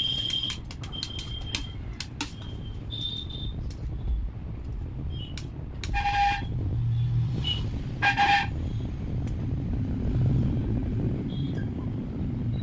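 Steady low rumble of road traffic, with two short beeping tones about six and eight seconds in. Scattered light clicks of a palette knife working coloured cream on a stone counter.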